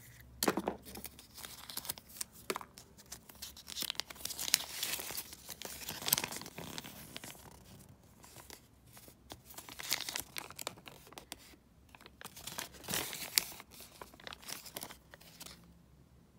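Crinkling and rustling of a thin folded paper toy leaflet being unfolded and handled, in irregular spells with short quiet gaps. A few sharp clicks of handled plastic pieces are mixed in.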